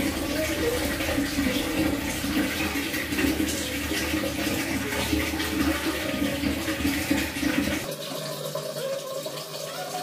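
Water being poured and splashing over a cat during its bath and onto a tiled bathroom floor. It is a steady rush that drops away about eight seconds in.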